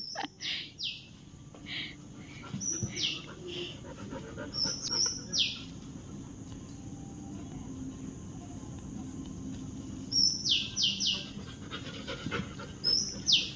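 A bird calling over and over with short, sharp notes that slide steeply down in pitch, singly and in quick runs of two or three, over a steady high drone of insects.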